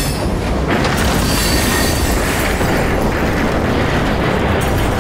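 Train passing close by: a loud, steady rumble of wheels on the rails, with a faint high wheel squeal in the first couple of seconds.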